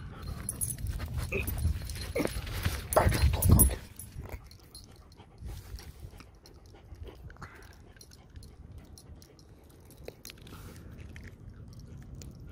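Small dogs taking food from a hand and eating it, with snapping and chewing mouth sounds. There is a louder stretch of low rumbling in the first four seconds that cuts off suddenly.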